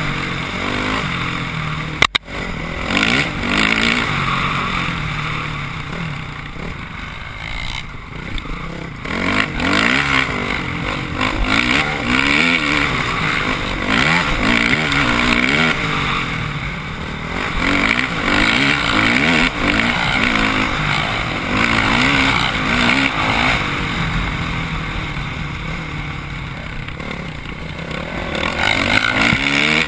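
Dirt bike engine heard from the rider's helmet camera, revving up and down with the throttle and gear changes, with rushing wind noise over the microphone. A sharp click about two seconds in.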